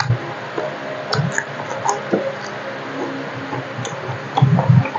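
A person chewing food close to a clip-on microphone: wet mouth smacks and small clicks, with a couple of louder low thumps near the end.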